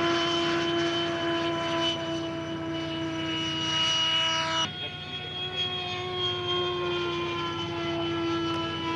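Radio-controlled scale model airplane engine running at a steady, high-pitched whine. The pitch shifts slightly about halfway through and then sinks gently.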